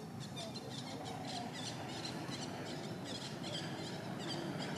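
Birds chirping, many short quick calls in rapid succession, over steady low outdoor background noise.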